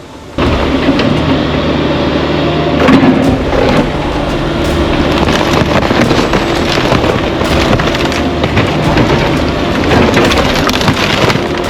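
A mini excavator's diesel engine running under load, with continuous crunching and crashing of demolition debris being broken and moved. It cuts in abruptly about half a second in.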